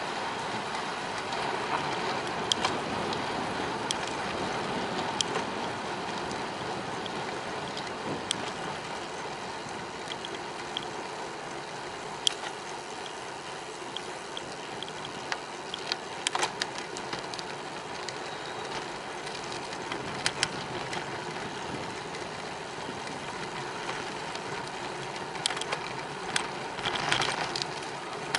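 Steady rushing noise of a bicycle ride, from the tyres and the air moving past, with scattered sharp clicks and rattles from the bike, more of them near the end.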